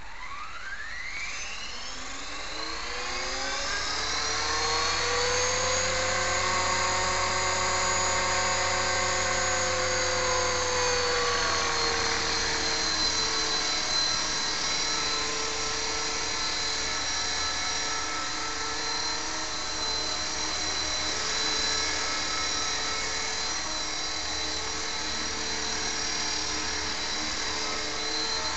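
Radio-controlled model helicopter spooling up, a whine rising in pitch over the first few seconds, then running steadily as it hovers and flies, with the pitch easing down slightly about twelve seconds in.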